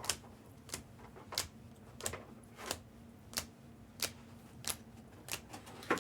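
Trading cards being handled one at a time in a steady rhythm, a light snap about every two-thirds of a second.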